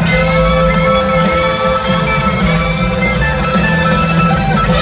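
Live band music: two electric guitars playing over a full band, with sustained, gliding guitar notes.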